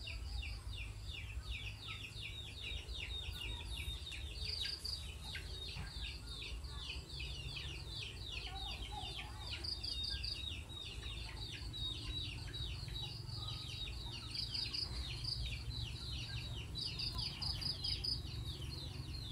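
Dense, continuous high-pitched chirping: many quick downward chirps a second, with short steady high trills now and then, over a low steady rumble.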